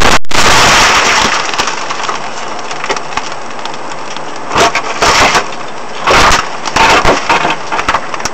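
A Subaru Legacy rally car crashing, heard from inside the cabin: loud scraping and crunching of the car's body on the road for about the first second, then it comes to rest. Several short crunches and crackles follow, from its broken glass and bodywork.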